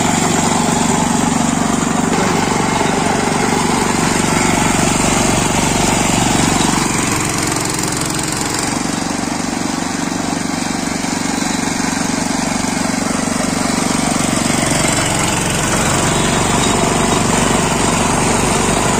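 Motor-driven sugarcane crushing machine running steadily, its belt, gears and rollers turning as cane stalks are fed through and pressed for juice.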